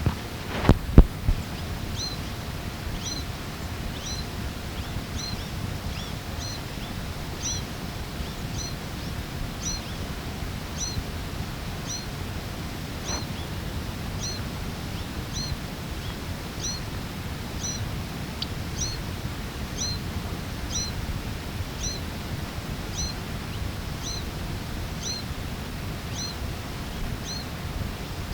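A small bird repeating a short, thin chirp over and over, about one to two calls a second, over steady outdoor hiss. A few loud knocks of microphone handling come about a second in.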